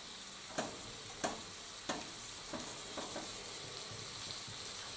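Breakfast sausage sizzling faintly in a nonstick skillet while a wooden spoon breaks it up, with a series of sharp taps and scrapes of the spoon against the pan, the clearest in the first two seconds.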